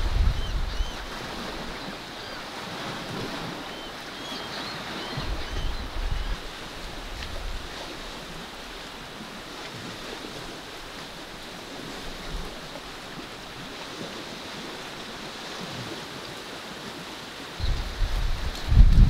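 Small waves washing in as a steady hiss, with wind buffeting the microphone in low gusts about five seconds in and again, louder, near the end.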